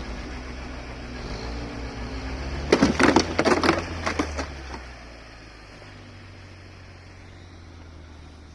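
UAZ engine running low and slow, with a quick run of loud, sharp cracks for about two seconds near the middle, after which the engine sound dies away to a low background.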